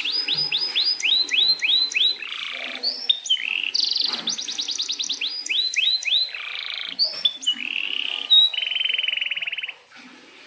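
Male domestic canary singing a long, continuous song: runs of quick descending whistled notes alternate with fast trills and rolls. The song breaks off abruptly near the end.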